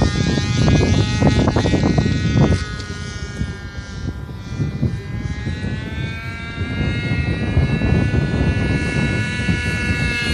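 RC model airplane engine droning in flight with a wavering pitch. It fades as the plane flies off, then grows louder again as the plane comes back. A low wind rumble on the microphone is strongest over the first couple of seconds.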